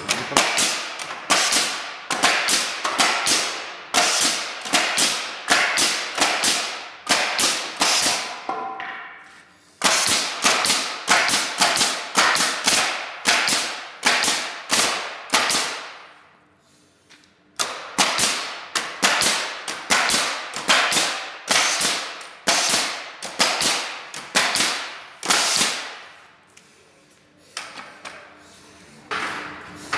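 Pneumatic coil nailer firing nails through pine deck boards into a wooden pallet: sharp shots about two a second, in runs broken by brief pauses.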